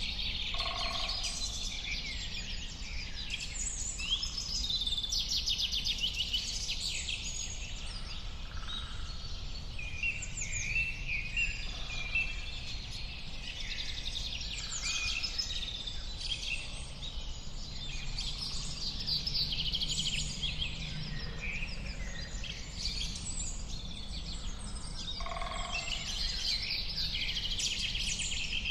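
Many birds chirping and singing at once in a dense, overlapping chorus of short high calls and trills, over a steady low background rumble.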